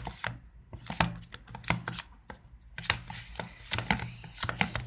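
Slime being stirred in a pot: irregular clicks, taps and scrapes of the stirring utensil against the pot, several a second, as the mix thickens with activator.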